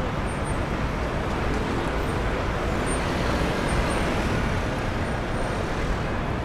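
Steady city street noise dominated by road traffic.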